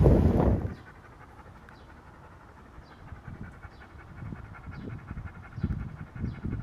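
A dog panting in soft, uneven breaths that grow louder over the last few seconds. Loud wind noise on the microphone cuts off within the first second.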